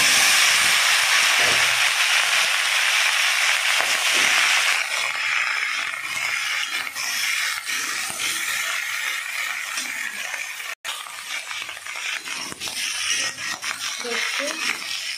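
Cut papaya, ridge gourd and okra hitting hot oil with nigella seeds in a kadai: a loud sizzle for the first few seconds that then settles to a softer, steady sizzle. A metal spatula stirs and scrapes the vegetables against the pan.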